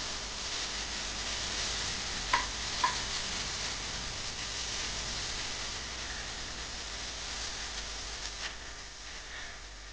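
Chopped vegetables sizzling as they sauté in oil in a pan, stirred with a wooden spatula: a steady frying hiss with the scrape of stirring. Twice, about half a second apart, the spatula knocks sharply against the pan a couple of seconds in.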